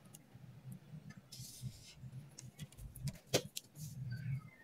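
Faint handling of a clear plastic pattern ruler and marker on drafting paper: a short scrape a little over a second in, scattered light clicks and one sharper click about two-thirds of the way through, over a low hum.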